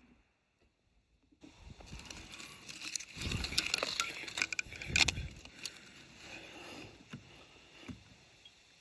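Rustling with scattered clicks and taps, busiest about three to five seconds in, as leaves brush against the rifle scope. It starts after a second or so of silence.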